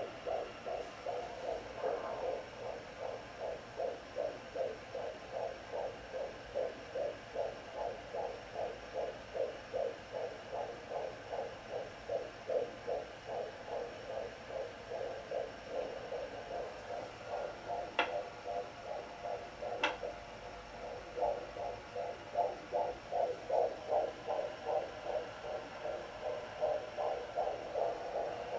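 Sonoline B pocket fetal doppler playing a fetal heartbeat through its speaker: a fast, even pulsing at about two and a half beats a second over a steady hum. Two sharp clicks come close together about two-thirds of the way through, and the beat fades briefly after them.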